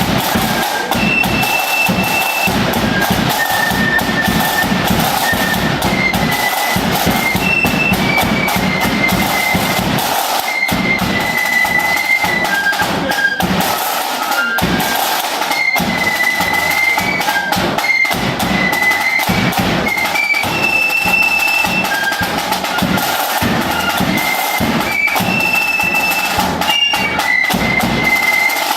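Flute band playing a march: high flutes carry the tune over steady bass drum and snare drum with rolls.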